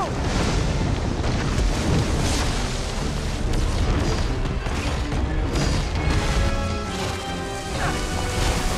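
Film action sound mix: an orchestral score over heavy booms and a continuous low rumble of electricity and sand effects.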